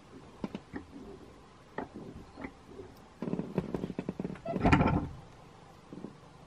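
Hands bending stiff stainless steel wire around a garden hose on a hand-made clamp tool: scattered small clicks and scrapes of wire on metal and hose, with a denser burst of scraping and handling noise around three to five seconds in, loudest near the end of it.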